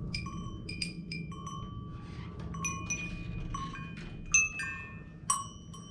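Hanging glazed ceramic and small metal bells struck by hand one after another, about a dozen strikes at an uneven pace. Each bell rings at its own pitch, and several ring on together as they fade.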